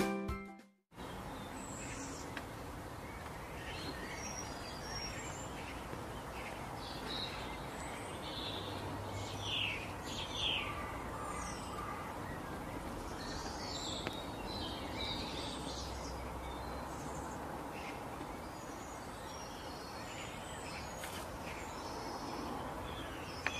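Outdoor ambience: a steady background hiss with wild birds calling, scattered short high chirps and a few falling whistled calls, most of them near the middle.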